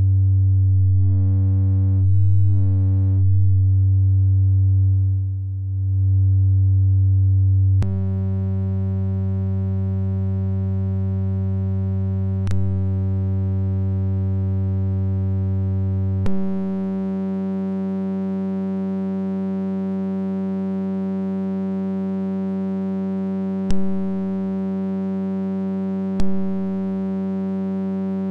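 A low, steady sine-wave tone from a Eurorack modular synth, shaped by the Earwig rectifying mixer as its bias and rectify controls are changed. About eight seconds in it turns buzzier. Around sixteen seconds in it jumps up an octave as the wave is full-wave rectified. A few sharp clicks come from the controls being switched.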